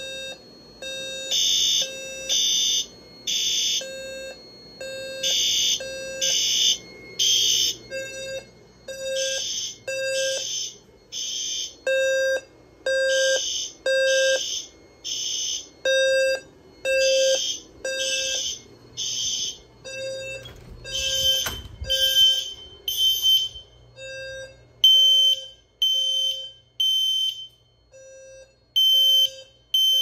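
Fire alarm horns from a System Sensor B200SR sounder base and a System Sensor HWL horn sounding in sync, pulsing about once a second in repeating groups of three. Short pulses of a 520 Hz tone from SpectrAlert Classic speaker strobes pulse along with them. After about twenty-odd seconds the horn pulses become a thinner, single-pitch beep, and a knock is heard near the middle.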